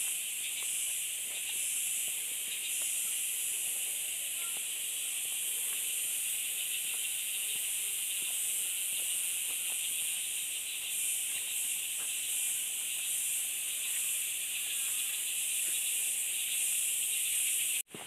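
A steady, high-pitched buzzing chorus of insects, unchanging throughout.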